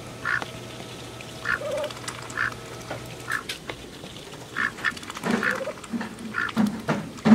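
Domestic white ducks quacking in short, separate calls, getting louder and lower from about five seconds in.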